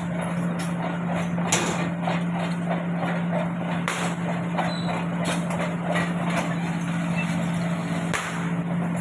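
Heavy machinery running with a steady low hum, and metallic clanks and knocks scattered throughout; the hum dips briefly near the end.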